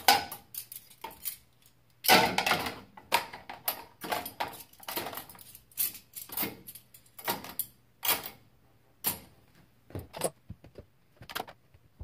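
Metal forks clinking against each other and against a dishwasher's plastic cutlery basket as they are put in one after another: a run of sharp, irregular clinks, thickest about two to three seconds in.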